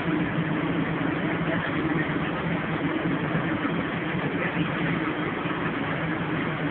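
Venetian waterbus (vaporetto) diesel engine running steadily under way: a constant low hum over the rush of churned water along the hull.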